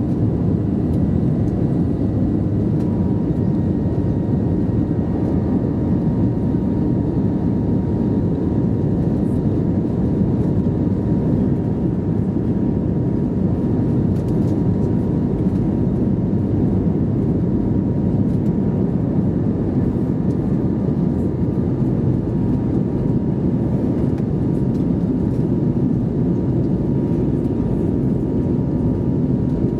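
Cabin noise inside an Airbus A320neo climbing out after takeoff: the engines and airflow make a steady low roar with a faint steady whine on top.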